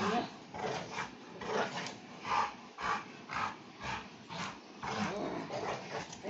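A pet dog making short, repeated vocal sounds, about one or two a second, as it is being soothed.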